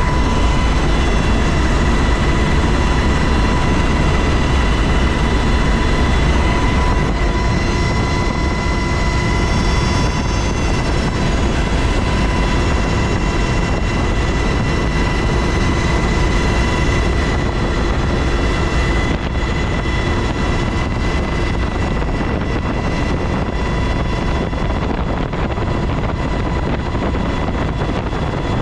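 UH-60 Black Hawk helicopter in flight, heard from inside the cabin: its twin turboshaft engines and rotors make a loud, steady noise, with several steady high whine tones over it.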